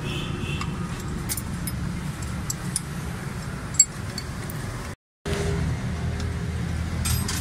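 Scattered light metallic clinks of hand tools over a steady low vehicle rumble, with a brief complete dropout about five seconds in.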